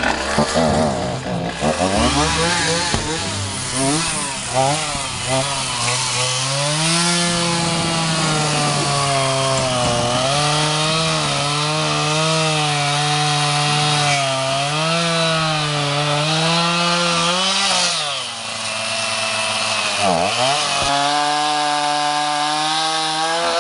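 Chainsaw running under load while cutting through a tree limb, its engine pitch wavering up and down as the chain bites. Near the end it bogs down sharply and then picks back up.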